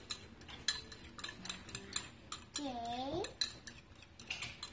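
A metal fork clinking against a ceramic bowl as egg is beaten. The clinks are quick and uneven, a few a second, with a short break in the middle.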